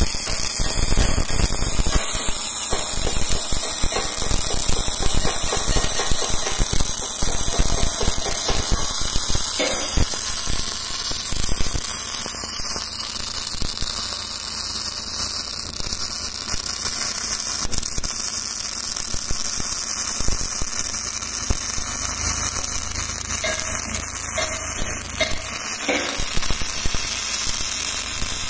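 MIG (gas metal arc) welding arc on steel plate, crackling steadily as the wire feeds into the weld pool. The crackle is densest in the first third and evens out into a steadier hiss later.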